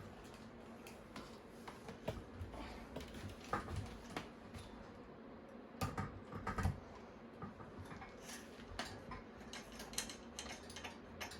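Scattered light clicks and knocks of metal parts being handled as the head of a pedestal fan is fitted onto its stand, with a louder cluster of knocks about six seconds in.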